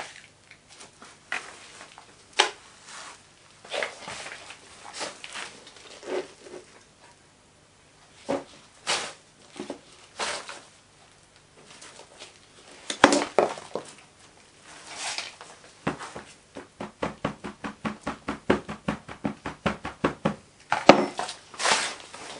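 Small hand scoop scraping and shovelling moulding sand into a wooden moulding box on a board, heard as separate scrapes and dull knocks. In the second half comes a run of quick light taps, about four a second.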